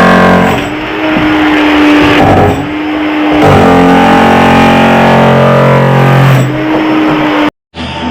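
Background music of loud, buzzing held chords that change every second or so. It cuts out abruptly for a moment near the end.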